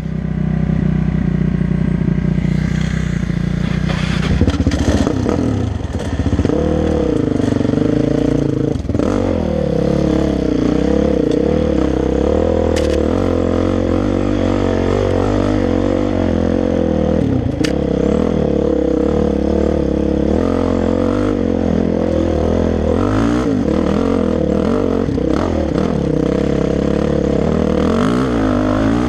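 Dirt bike engine running on a rough trail ride. It runs low for about the first four seconds, then pulls harder, with the revs rising and falling with the throttle. A few short knocks and rattles come from the bike over bumps.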